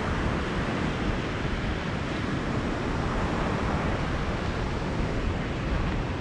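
Ocean surf washing onto a beach, a steady rush of noise, with wind rumbling on the microphone.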